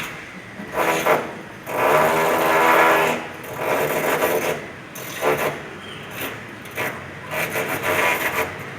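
Electric rotary hammer (martelete) hammering in short bursts on a building site, its rapid buzzing blows starting and stopping about five times, the longest burst lasting about a second and a half.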